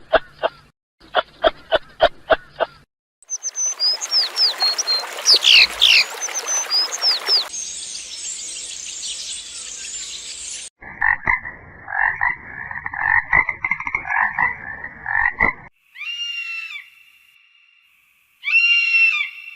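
Several short wild-animal call recordings cut one after another: first two trains of quick pulsed calls, then a rushing hiss with high chirps, a high steady hiss, a long run of pulsing calls, and near the end two short rising-and-falling high calls.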